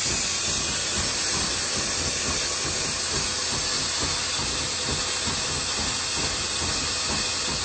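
Steady, even rushing noise of a halogen turbo oven running with its drill-driven stirrer turning coffee beans during the late, second-crack stage of the roast.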